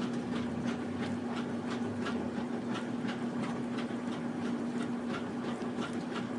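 Small dog chewing a strawberry, wet smacking bites coming about three times a second, over a steady low hum.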